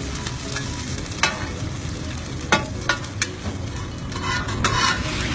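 Hoy tod (crispy shellfish omelette) sizzling in hot oil in a pan while metal spatulas turn it. There are several sharp clinks of spatula on pan between about one and three seconds in, then scraping near the end as the golden, crisp batter is scraped up off the pan.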